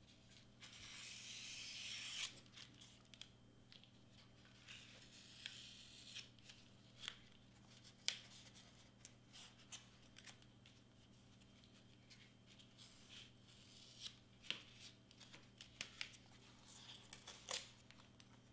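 Faint scratching and rustling of cardstock and foam board being handled and marked with a pen on a cutting mat. A longer scratch that grows louder starts about half a second in and lasts about a second and a half, followed by scattered light taps and clicks.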